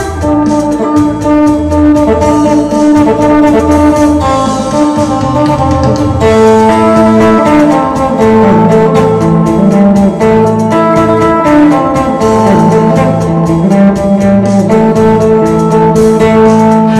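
Isan phin, a three-string Thai lute, plucked in a lam phloen tune: a melody of held notes and quick repeated plucks over a low drone, with the drone thinning and the melody shifting lower about six seconds in.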